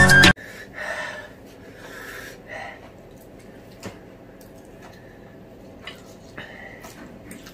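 Background music cuts off just after the start. Then soft, noisy breathing and sniffing from people eating fiery-hot chilli noodles, their mouths burning, with a few light clicks.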